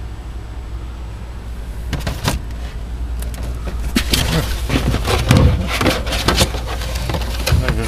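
Rummaging in a refrigerator: irregular knocks, clicks and rustling of food packages being moved, starting about two seconds in, over a steady low hum.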